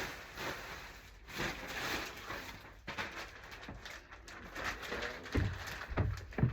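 Rustling and crinkling as pillows and bedding are handled, with a few soft low thumps near the end.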